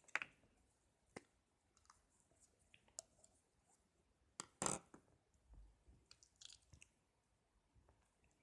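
Faint sticky clicks and crackles of slime being squeezed and pulled by hand, scattered, with a louder cluster about four and a half seconds in.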